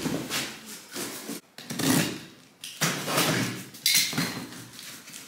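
A parcel being unpacked by hand: packaging rustling, scraping and knocking in several separate bursts with short pauses between them.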